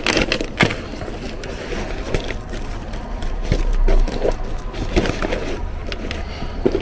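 Scattered knocks and scuffs from a cardboard box being handled and from footsteps on a tiled pavement, over a low, steady rumble. The sharpest knock comes about half a second in.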